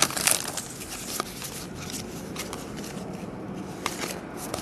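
Trading cards handled and slid out of an opened pack wrapper: a brief crinkle of the wrapper at the start, then soft rustling of the cards with a few faint clicks.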